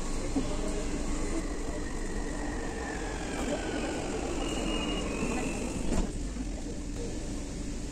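Marmaray commuter train car's sliding doors closing at a station stop: two short high warning beeps, then the doors shut with one sharp knock about six seconds in, over a steady rumble of the carriage.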